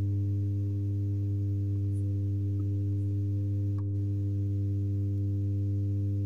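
Steady mains hum from the powered Intex home theater amplifier: a low buzz with a stack of evenly spaced overtones, unchanging throughout. A few faint ticks sit over it.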